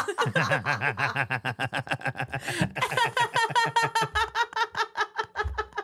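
People laughing hard: a long, unbroken run of rapid ha-ha pulses.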